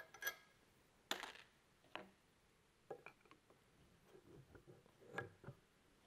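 Faint, scattered metallic clicks and ticks of an Allen key working in the rear set screws of a gear pump housing as the screws are loosened.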